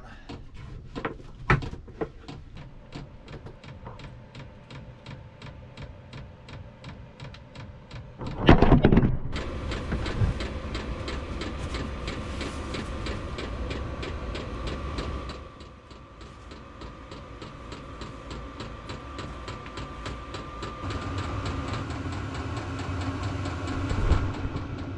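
Diesel air heater starting up: its fuel pump ticks steadily, about five times a second. About eight seconds in there is a loud rush, and the heater's blower and burner then run steadily with a thin whine over the ticking.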